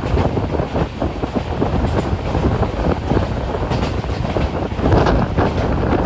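Wind buffeting the microphone at the open door of a moving express train, over the steady rumble and rattle of the coach running on the track.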